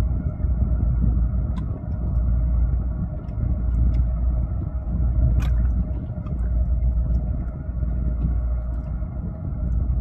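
Marine engine running with a low, steady rumble and a constant hum, with a few sharp clicks, the loudest about five and a half seconds in.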